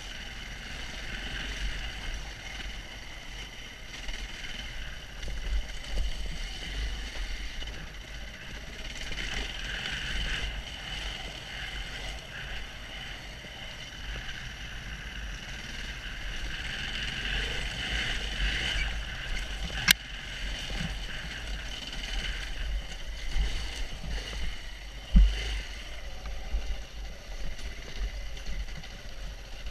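KTM 690 Enduro R's single-cylinder four-stroke engine running as the bike rides a rough forest trail, heard through a helmet-mounted camera with wind rumbling on the microphone. There is a sharp click about twenty seconds in and a thump about five seconds later.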